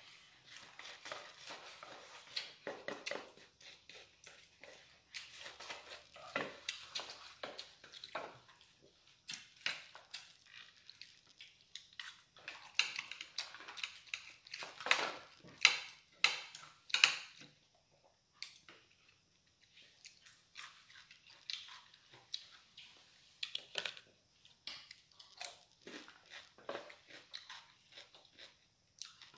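Eating sounds: chewing, with utensils clicking and scraping against bowls and plates in short, irregular clicks, the loudest clatter about halfway through.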